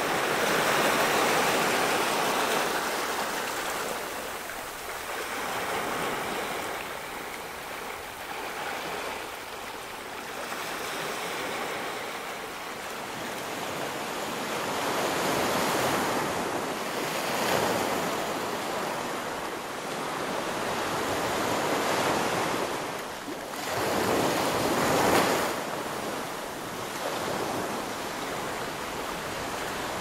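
Sea waves washing onto the shore. The rush swells and fades in several surges, the strongest near the end.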